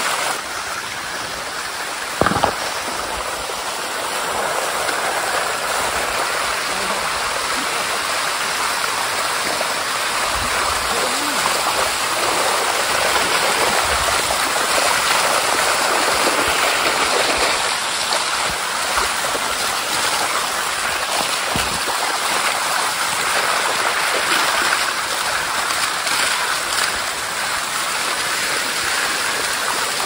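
Shallow waterfall water rushing and splashing over calcium-carbonate rock close by, a steady noise. A brief knock about two seconds in.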